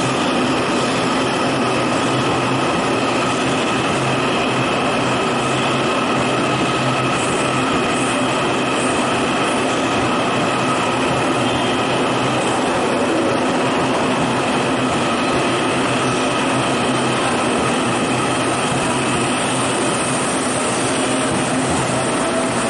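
Taiwan Railway EMU800 electric multiple unit departing along the platform: a steady rumble of wheels on rail, with a constant high whine over it.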